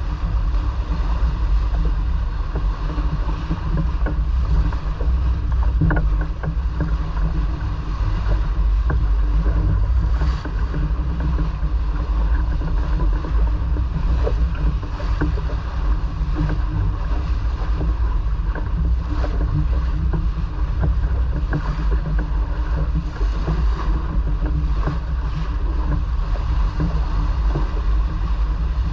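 Steady rush and rumble aboard a sailboat under way: wind buffeting the microphone and water running along the hull, with no break.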